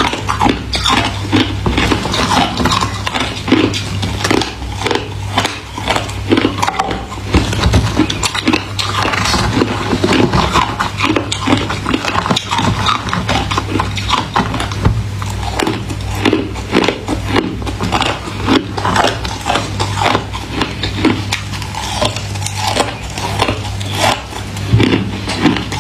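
Close-miked biting and chewing of freezer frost and ice: a rapid, unbroken run of crisp crunches and crackles, over a steady low hum.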